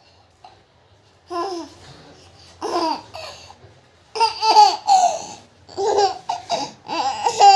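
Baby babbling and laughing in a string of short, high-pitched vocal bursts, starting after about a second of quiet and growing louder about halfway through.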